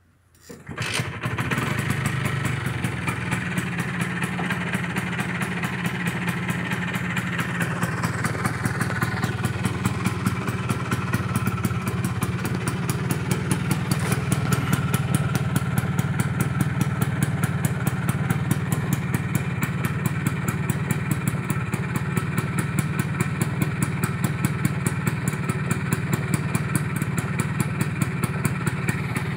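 Vespa 50 R's small two-stroke single-cylinder engine starts about half a second in and settles into a steady idle with an even pulse. The carburetion has just been adjusted after a full restoration.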